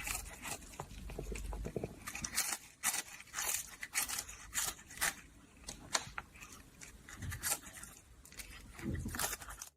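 A pet chewing a crunchy snack: a string of short, irregular crunches.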